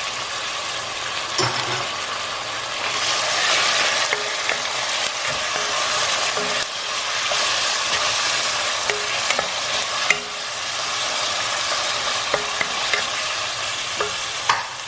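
Raw chicken thigh pieces frying with a steady sizzle in hot oil with onion and ginger in a stainless steel pan, stirred with chopsticks and a wooden spatula that tick against the pan now and then.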